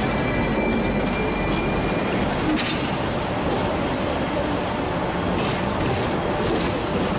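Hong Kong double-deck electric tram rolling past close by on curved track: steel wheels rumbling on the rails, with a faint high squeal from the wheels on the curve and a few clicks as they cross the rail joints.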